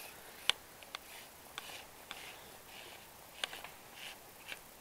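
Handling of a fishing rod and reel while playing a hooked fish: a few sharp, scattered clicks and soft rustles over a faint hiss.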